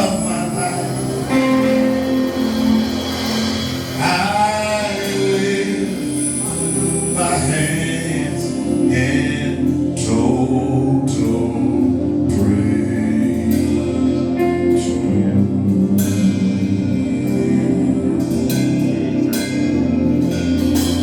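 Gospel worship music with singing over sustained chords, and sharp percussive hits coming in during the second half.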